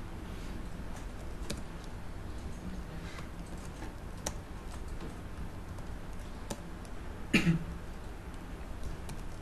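Slow, scattered computer keyboard keystrokes as text is typed, a few separate clicks, with one louder short knock about seven seconds in, over a low steady hum.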